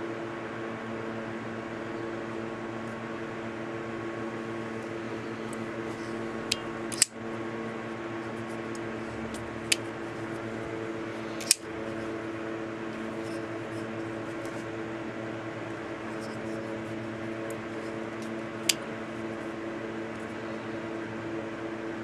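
Five short, sharp metallic clicks from an Al Mar SERE automatic folding knife as its blade is fired open and locks and is then folded shut, the two loudest about seven and eleven and a half seconds in. A steady low hum runs underneath.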